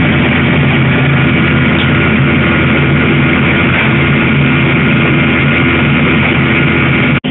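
Gas wok range in a Chinese-restaurant kitchen running, with its burner and exhaust giving a loud, steady rush over a low hum. It stops abruptly near the end.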